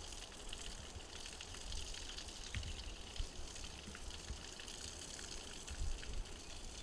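Faint steady hiss of running water, with a few short low rumbles.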